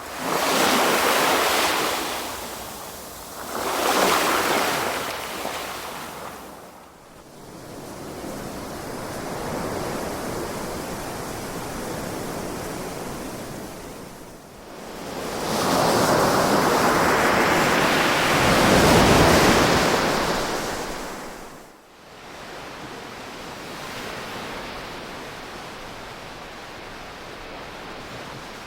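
Ocean waves breaking and washing up the shore in slow surges: two short swells in the first few seconds, a softer wash, then a long, louder swell for several seconds past the middle before it falls back to a gentle wash.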